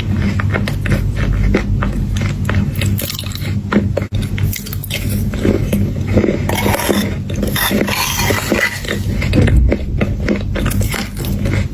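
Close-miked biting and chewing of crunchy chocolate chunks, many quick crunches, thickening into a dense run of crackly crunching from about six to nine seconds in. A steady low hum runs underneath.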